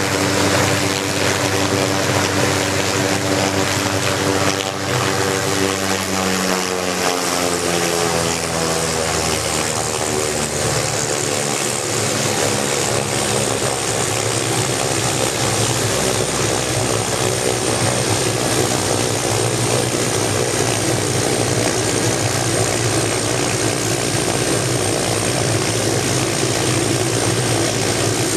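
Hughes 500 helicopter's Allison turboshaft engine and rotor running on the ground. The engine and rotor tones shift in pitch a few seconds in, then settle into a steady drone with a high turbine whine above it. This is the run-up after a cold-engine start.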